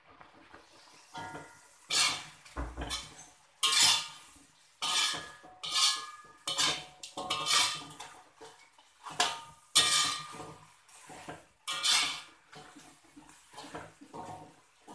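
A slotted spatula scraping and knocking against a metal wok as chicken is stirred through a thick sweet soy sauce, in repeated strokes about once a second with a brief metallic ring, softer near the end.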